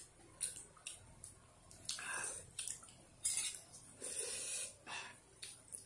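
A ladle and spoons clinking on a metal pan and bowls as noodle soup is served and eaten, with broth dripping and splashing. The sound comes as scattered short clicks and brief splashes.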